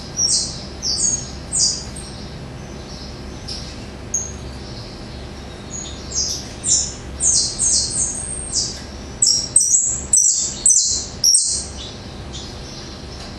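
Small caged songbird singing: phrases of short, high, clear whistled notes, each held on one pitch and jumping between pitches. After a few seconds' pause, a quicker run of notes comes near the end.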